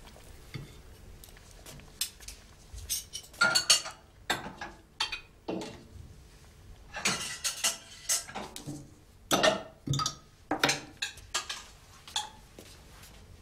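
Pots, pans and cooking utensils clattering at a kitchen stove: a run of sharp metal clanks and knocks, busiest from about two seconds in until near the end.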